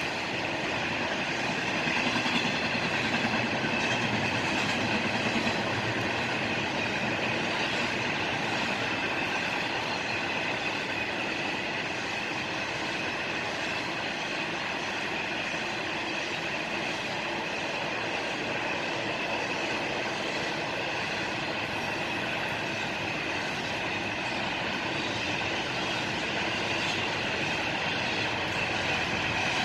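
Freight train cars rolling steadily past on the track: a continuous rolling noise of wheels on rail, with a steady high-pitched tone over it.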